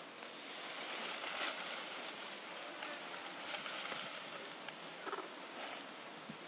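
Steady rushing hiss of outdoor forest ambience, swelling a little at times, with a thin, high, constant whine above it and no clear animal calls.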